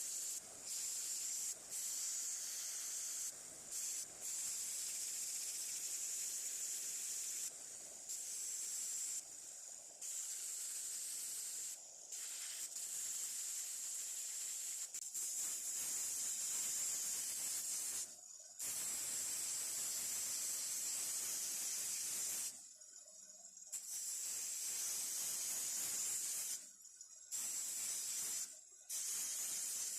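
A spray hissing in repeated bursts of a few seconds each, cutting off sharply between them.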